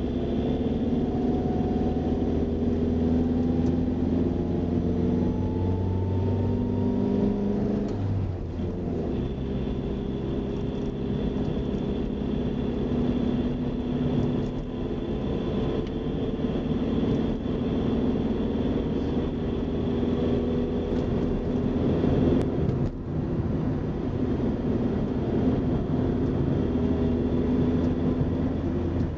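Car engine and road noise heard from inside the cabin while driving up a mountain road. The engine note climbs over the first several seconds and drops about eight seconds in.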